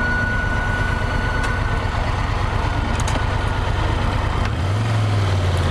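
Triumph Tiger 1200's triple-cylinder engine running with the clutch lever pulled in, giving a thin steady high squeal (a 'chiadinho') that stops about two seconds in. This is the clutch fault the dealer found and is replacing under warranty. Near the end the engine settles to a steady idle.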